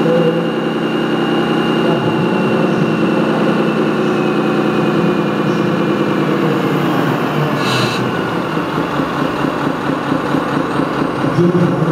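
Steady running drone of the 1:8-scale model vehicle carrying the camera as it drives along the course, with a faint whine that slowly drops in pitch. A brief hiss about eight seconds in.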